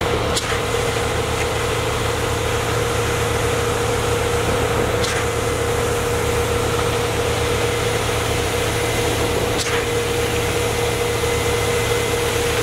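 Concrete pump running steadily while pumping concrete through its delivery hose, a constant engine drone with a steady hum, and a faint sharp click three times, about four and a half seconds apart.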